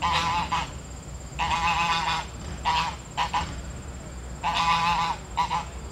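Domestic geese honking: harsh calls in short bursts, about six of them.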